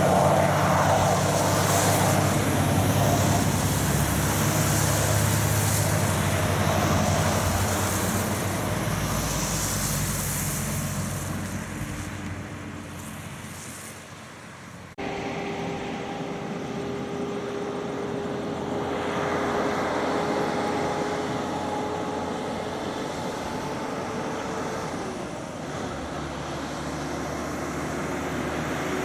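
Heavy truck and car traffic on a wet road: engines running and tyres hissing as the vehicles pull away up the hill, the sound fading over the first half. After an abrupt cut, a cab-over truck approaches with a steady engine whine that dips briefly about three-quarters of the way through and then picks up again.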